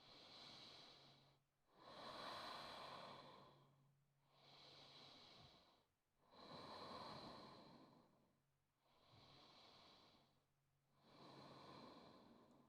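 Faint, slow, deep breathing, about six breaths in and out, each lasting a second and a half to two seconds, with short pauses between them, from a person holding a yoga forward fold.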